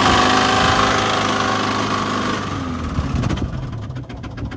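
Car engine winding down from a high rev over about three seconds, then idling with a rapid, even knocking: the sound of a rod knock.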